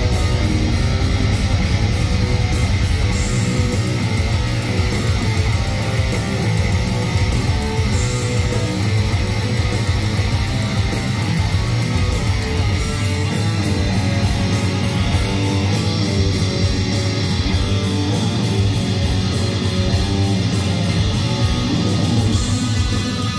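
Live heavy metal band playing loud, with electric guitar to the fore. Its heavy low end turns choppy and rhythmic about three seconds in.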